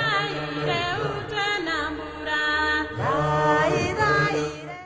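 Music with a singing, chant-like voice over a steady low tone, fading out at the end.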